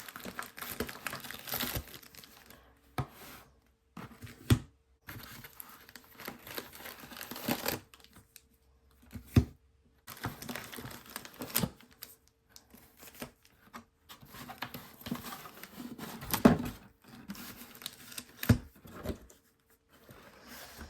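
Trading-card pack wrappers crinkling and tearing as the packs are taken out of the box and handled, in uneven stretches with a few sharp knocks and taps in between.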